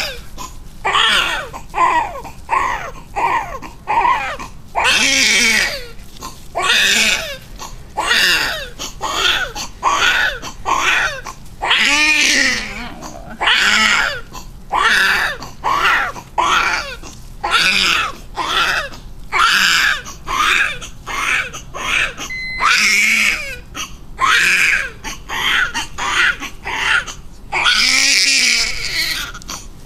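Newborn baby crying hard, in short wails about one a second with quick breaths between them and a few longer wails, while being wiped down with a cloth in her first bath.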